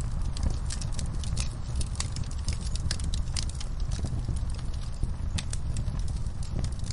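Wood fire burning in a fireplace: a steady low rumble of flames with irregular sharp crackles and pops, several a second.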